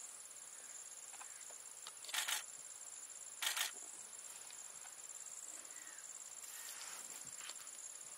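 Steady high-pitched drone of insects in the background. About two seconds in, and again about a second later, there is a short breathy burst of noise; these two bursts are the loudest sounds.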